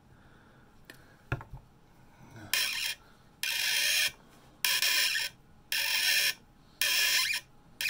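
Hand tap in a bar tap wrench cutting threads in a brass flange, well lubricated with cutting oil. Five short rasps, about one a second, as the tap is worked round, each about half a second long. A couple of light knocks come about a second in.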